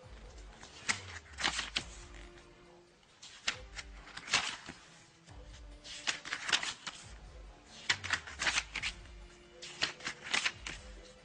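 Paper booklet pages handled and flipped by hand: clusters of crisp rustles and flicks, coming irregularly every second or two.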